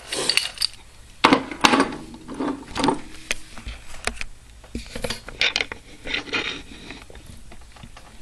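Irregular metal clicks, taps and scrapes from a mortise lock cylinder and its pick and tensioner being handled at close range.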